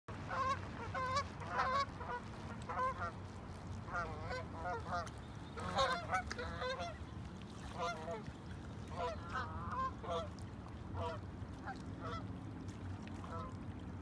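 Seagulls calling, a run of short honking, wavering cries in quick groups, thicker in the first half and thinning toward the end, over a low steady background rumble.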